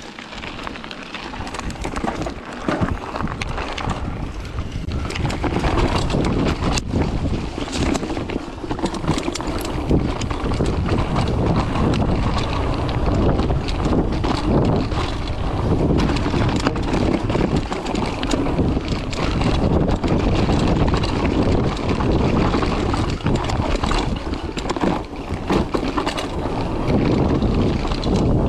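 Wind buffeting a GoPro's microphone on a mountain bike descending dirt singletrack, mixed with the rumble of the tyres over the dirt and short clacks and rattles of the bike over bumps. It builds over the first few seconds as the bike picks up speed, then holds steady.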